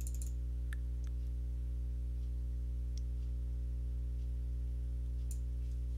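Steady low electrical hum with several even overtones, the background noise of the recording setup, unchanging throughout. A few faint clicks sound over it, about a second in, near the middle and near the end.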